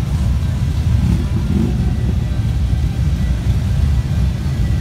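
Many heavy cruiser motorcycles idling together in a long line, making a loud, steady, deep engine rumble.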